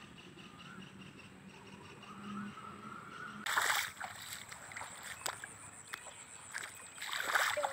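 Water splashing and sloshing in a sudden burst about three and a half seconds in, with a few scattered knocks after it and more splashing building near the end; before the burst it is quiet.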